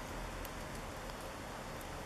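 Steady outdoor background hiss with a few faint clicks; no call or other clear event.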